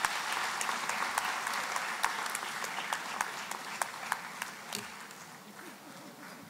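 Audience applause, a dense patter of hand claps with some sharp single claps, thinning and dying away over the last couple of seconds.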